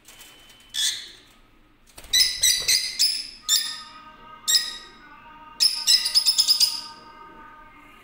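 Lutino rosy-faced lovebirds giving sharp, high chirping calls: one call about a second in, a quick cluster of calls a little later, two single calls in the middle, then a rapid run of calls near the end.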